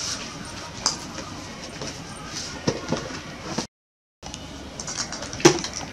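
Rustling and handling noises of bedding and a plastic bag, with a few sharp clicks, cut by a brief gap of silence a little past halfway.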